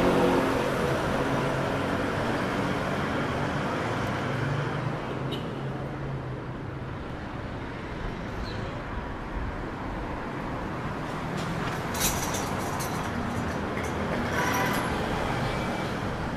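Street traffic: motor vehicles running and passing, with a steady rumble of engines and tyres. There is a low engine hum near the start and a single sharp knock about twelve seconds in.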